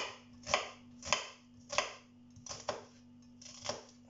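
Kitchen knife chopping spring onion on a plastic cutting board, dicing it finely: about seven sharp knocks at uneven intervals, roughly one every half second.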